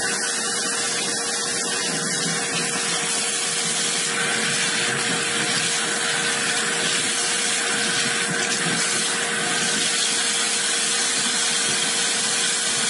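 Kitchen tap running steadily, water splashing over a salt-cured salmon fillet as the salt is rinsed off it in the sink.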